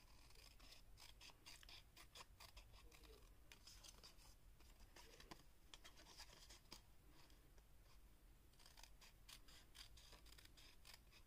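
Faint, rapid snipping of small scissors cutting through paper, many short cuts in quick runs with a brief pause about two-thirds of the way through.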